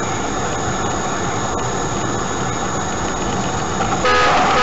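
Steady engine and road noise of a car heard from inside the cabin. About four seconds in, a louder, steady-pitched car horn sounds.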